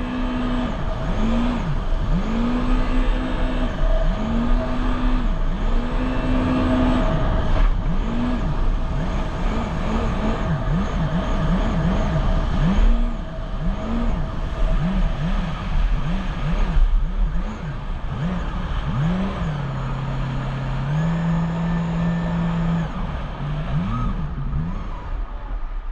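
Jet ski engine revving up and down over and over as the throttle is opened and eased off, with quicker pulses midway. Near the end it holds at a steady lower speed for a few seconds.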